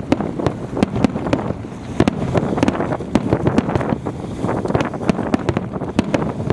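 Strong wind buffeting the microphone in a steady low rumble, cut by many sharp, irregular cracks and pops from bursting fireworks.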